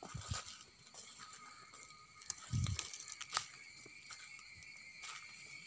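Rustling and clicking handling noise from a phone carried along while filming, with a low thump about two and a half seconds in and a sharp click soon after, over a steady high-pitched background drone.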